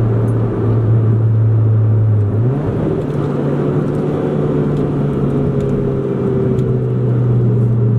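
1997 Honda Civic hatchback's four-cylinder engine and road noise heard from inside the cabin while driving. The engine's steady drone rises quickly in pitch a little over two seconds in, then holds steady at the higher pitch.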